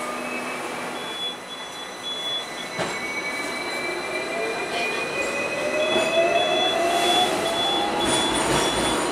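Hong Kong double-decker electric tram running, heard from the upper deck: rail rolling noise with thin, steady high-pitched squeals. From about four seconds in, a whine rises steadily in pitch as the tram picks up speed.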